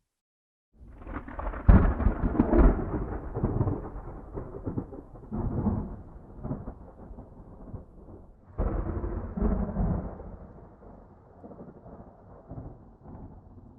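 Thunder: a peal breaks in about a second in, with loud cracks, then rolls and rumbles as it fades. A second sudden clap comes a little past halfway and rumbles away in turn.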